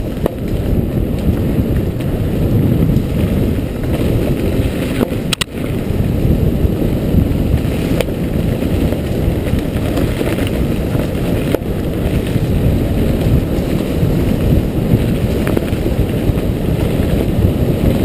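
Bicycle ridden fast down a dirt singletrack: a steady low rumble of tyres on dirt and the bike rattling over the bumps, heard close up on the bike. A sharp knock comes about five and a half seconds in.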